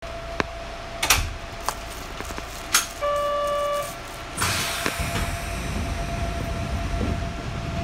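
Sanki Railway Hokusei Line 270-series train at departure, heard from inside the car: a few sharp clunks, then a steady signal tone lasting about a second. About halfway through comes a burst of air hiss, then the low rumble of the train beginning to move.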